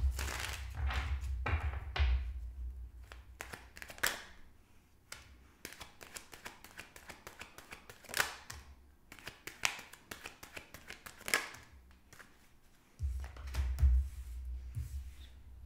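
Tarot cards being shuffled and dealt onto a wooden table: papery riffling and card clicks at the start, then separate sharp card snaps as cards are drawn and laid down. There are dull thumps on the tabletop near the start and again near the end, as the cards are set down.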